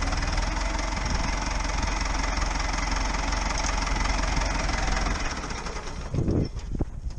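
An engine idles steadily, then stops about five seconds in. A few short, loud knocks follow near the end.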